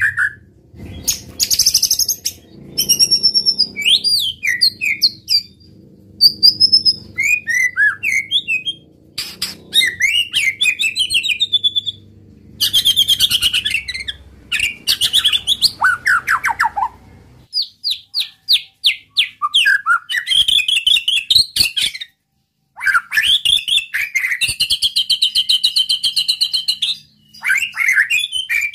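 White-rumped shama (murai batu) singing loudly, a long run of varied whistled phrases, trills and fast repeated notes, broken by short pauses.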